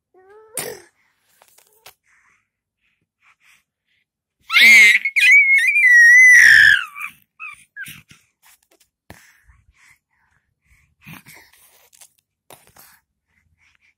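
Baby of about six months giving a short rising coo at the start, then, about four and a half seconds in, a loud, high-pitched squeal that wavers in pitch for two or three seconds. Soft rustles and knocks of clothing and bedding follow.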